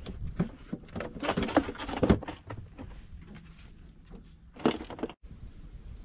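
Knocks, clicks and rustling from fishing gear being handled in a small boat, densest between about one and two seconds in, with another knock near five seconds. A low rumble of wind on the microphone runs under it; just after five seconds the sound drops out for a moment, then only the wind noise goes on.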